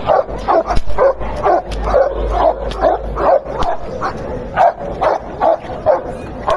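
A dog barking rapidly and without pause, about three barks a second.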